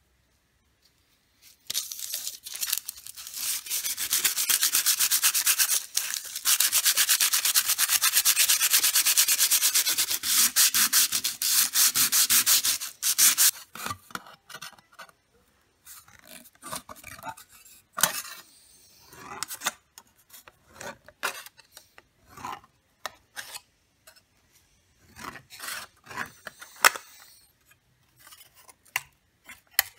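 Sandpaper rubbed back and forth in rapid strokes over a sheet of aluminium for about twelve seconds, roughening its surface. It then gives way to scissors snipping the sheet into strips: short, separate snips and clicks.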